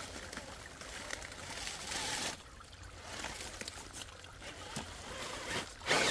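RC rock crawler driving into shallow creek water beside a log, its tires churning and splashing, with a louder splash near the end.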